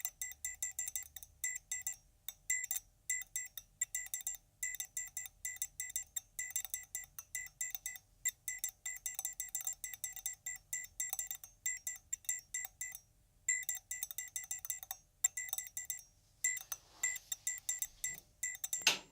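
Rapid, irregular run of sharp high-pitched electrical ticks and buzzes, typical of the igniter of an end-of-life streetlight lamp pulsing as it tries to strike. A denser crackle comes near the end.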